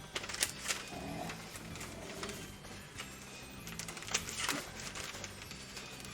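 Gift-wrapping paper being handled, giving a few sharp crinkles and rustles, two about half a second in and two more around four seconds in, over soft background music.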